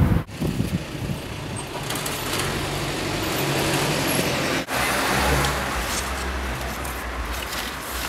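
Street traffic noise: a steady hiss and low rumble of passing vehicles, broken twice by abrupt cuts, once just after the start and again a little past halfway.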